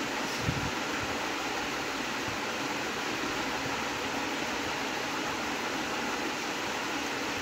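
Steady, even hiss of background noise at a constant level, with one brief thump about half a second in.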